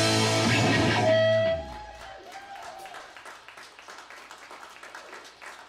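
A live rock band's final held chord, led by electric guitar, rings out and is cut off sharply about one and a half seconds in. Light applause from a small audience follows.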